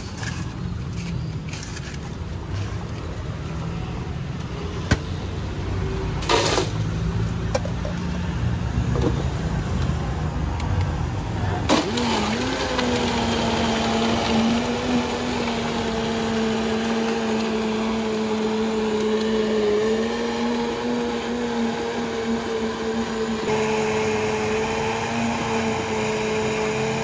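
Low street rumble, then about halfway through an electric blender switches on with a click and runs at a steady pitch, as when a fruit smoothie is being blended. A few seconds before the end it gets grittier.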